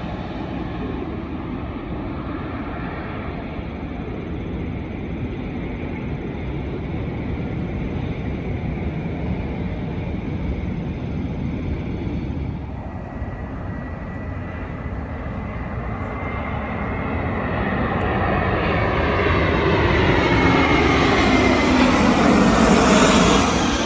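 Jet airliner on landing approach. Its engine noise builds over the second half as it comes in close, with a high whine and sweeping tones, and is loudest just before the end, then starts to fall away.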